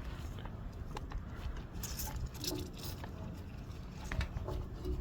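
Scattered light clicks and taps of hands working a hose fitting and equipment, over a steady low rumble of handling noise on the microphone.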